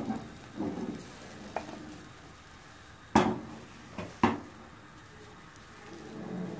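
A silicone spatula scraping and pushing under a frying egg in a non-stick frying pan, to loosen it for turning. About three and four seconds in come two sharp knocks, the loudest sounds, as the pan is held and shifted on the stove.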